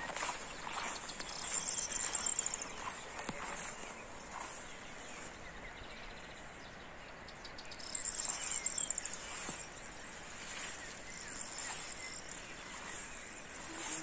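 Insects chirring: a steady high-pitched buzz that swells louder about two seconds in and again around eight seconds.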